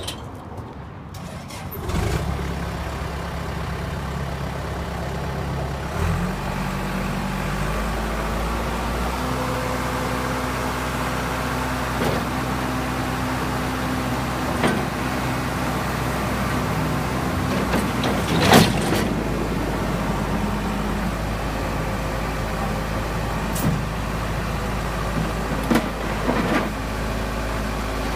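2007 Case 450CT rubber-track skid steer loader's 88-horsepower diesel engine catching about two seconds in and running steadily, its pitch rising as it is throttled up around six to eight seconds in. A few sharp clanks sound over it, the loudest about halfway through.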